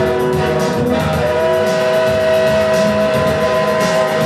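Live rock band music: electric guitar and keyboard over a steady beat, with a long held note starting about a second in.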